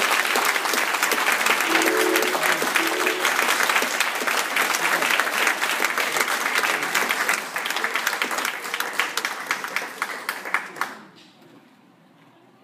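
Audience applauding, the clapping thinning out and stopping about eleven seconds in.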